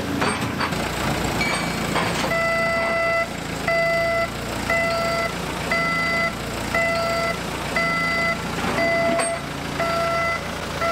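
Vehicle reversing alarm beeping about once a second, starting about two seconds in, over a steady low rumble.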